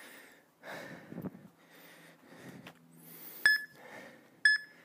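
Interval-timer countdown beeps: two short, identical electronic beeps a second apart, starting about three and a half seconds in, counting down the last seconds of a rest period. A few faint rustles come before them.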